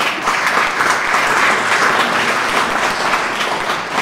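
Audience applauding: many hands clapping together, swelling in the middle and dying away near the end.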